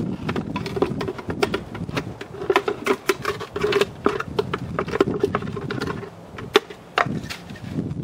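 Irregular light clicks and scrapes from handling a small glass bowl and filter parts, thickest in the middle seconds.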